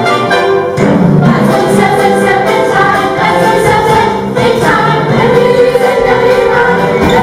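Stage-musical song: a cast singing together in chorus over loud instrumental accompaniment, with a new phrase of the music coming in about a second in.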